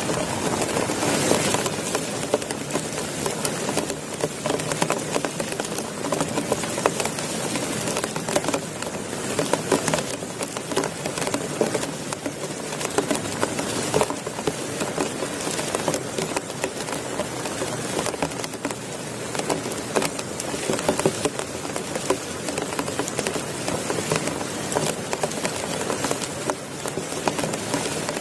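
Heavy rain falling steadily, a dense patter of drops striking a surface close by.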